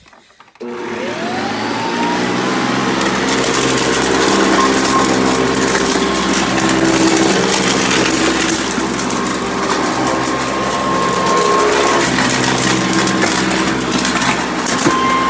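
Hoover Custom Convertible upright vacuum cleaner switched on about half a second in, its motor whining up to speed and then running steadily, with hard debris clicking and rattling as it is sucked up through the fan.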